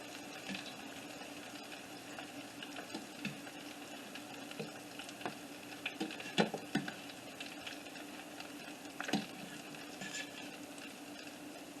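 Hot frying oil sizzling faintly and steadily, with scattered small pops and clicks.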